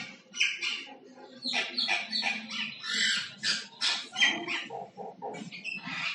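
Common myna singing: a quick string of varied short whistles, squawks and chattering notes, with a brief pause about a second in.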